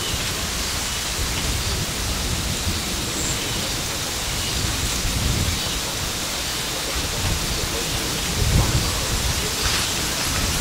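Steady rushing outdoor noise with no clear source, growing a little louder with low-pitched surges about eight and a half seconds in.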